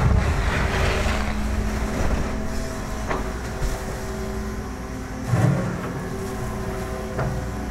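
Hitachi ZAXIS excavator's diesel engine working under hydraulic load as the boom lifts the bucket, louder in the first second, then steady. A few clunks come through, the loudest a low one about five and a half seconds in.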